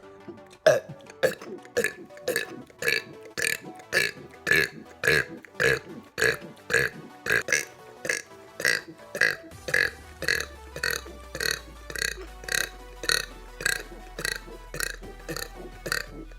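A run of short burps repeated in a steady beat, about two a second, set to music.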